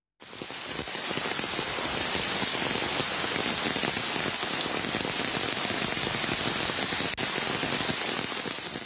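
Steady rain falling, an even hiss without pauses, starting a moment in, with a brief dip near the end.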